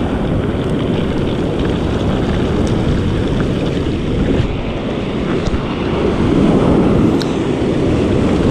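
Ocean surf washing up over a rocky shore, with wind buffeting the microphone. The wash swells louder about six to seven seconds in.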